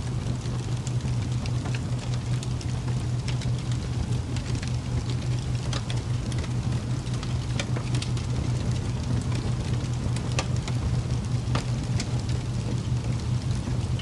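Steady ambient soundscape: a constant low hum under a hiss, broken by scattered sharp crackles.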